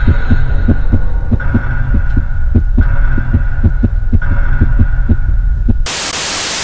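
Horror intro sound design: fast, even heartbeat-like thumping over a low hum, with a high tone that returns about every second and a half. Near the end it cuts to a loud burst of TV-static hiss.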